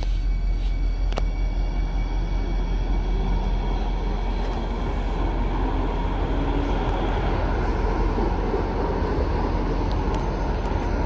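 NJ Transit Hudson-Bergen Light Rail car (a Kinki Sharyo low-floor light rail vehicle) moving along the platform close by, a steady running noise with a faint whine, over a heavy low rumble of wind on the microphone.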